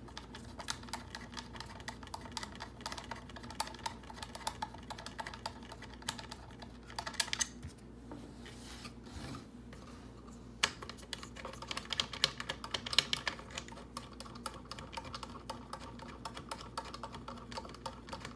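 Rapid, irregular light clicking and ticking of small metal parts as thumb screws are turned by hand at the base of an Aerus Air Scrubber's aluminium UV cell. Louder bursts of clicks come about seven seconds in and again around twelve to thirteen seconds in, with one sharp click near eleven seconds.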